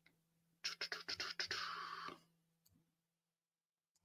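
A quick run of about eight sharp clicks, typical of computer keyboard and mouse clicks, running into a scratchy rubbing noise that lasts about half a second and then stops.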